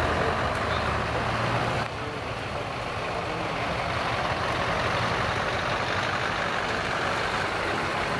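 Scania R-series truck tractor driving slowly past at close range, its diesel engine running steadily.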